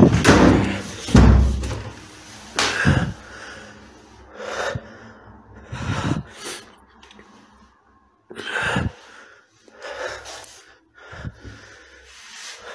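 A man breathing heavily close to a phone microphone, in separate noisy breaths every second or two. A loud low rumble of the phone being handled comes in the first second or so.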